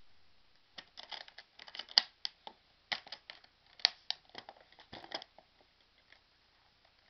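Metal snap latches on an aluminium carry case being flipped open, a quick run of clicks and clacks with two sharper snaps, then the lid lifting open; the clatter stops about five seconds in.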